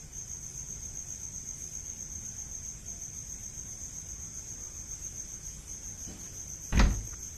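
Crickets chirring in one steady, high, even trill. Near the end comes a single loud, heavy thump from an unseen source, which the listener guesses came from the floor above or from cats running.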